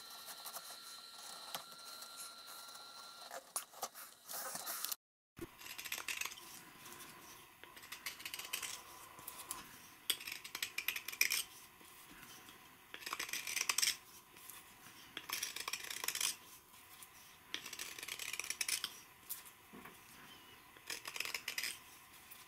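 Hand tools cutting dry birch wood. For the first few seconds a gouge scrapes and clicks inside the hollowed centre. After a short break about five seconds in, a carving knife shaves the outer edge in a series of short scraping strokes, roughly one every two seconds.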